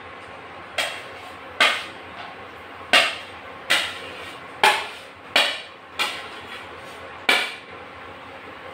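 Steel spoon clinking against a ceramic plate and the pan as chicken is scraped off the plate: eight sharp knocks, each ringing briefly, at an uneven pace of roughly one a second.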